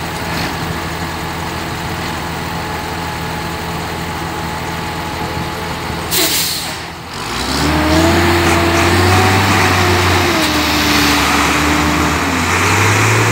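Several large farm tractors' diesel engines run steadily. About six seconds in there is a brief hiss, and then they run louder and labour under load, their pitch rising and falling as they pull a loaded sugarcane trailer out of deep mud.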